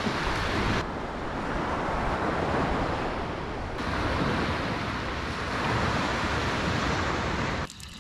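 Sea waves washing onto a sand-and-pebble shore, with wind rushing over the microphone. The sound drops away suddenly near the end.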